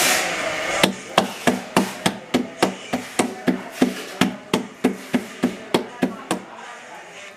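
A ceramic table lamp rocks on its feet against a board and knocks about three times a second in an even rhythm. The knocks stop about a second before the end.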